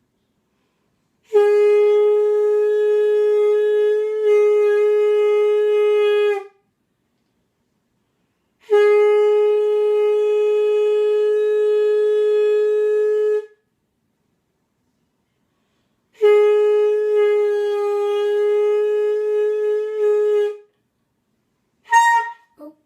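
Three long, steady notes, each about five seconds and all at the same pitch, blown on a partly assembled wind instrument as attempts to sound G sharp. A brief wavering blow follows near the end.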